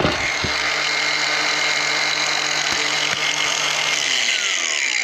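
18-volt cordless angle grinder running steadily at full speed, then spinning down near the end, its pitch falling as the motor coasts to a stop.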